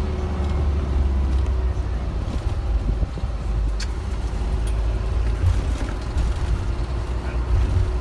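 A bus heard from inside its cabin as it drives: a steady low rumble of engine and road noise with a faint engine drone. There is one short click about four seconds in.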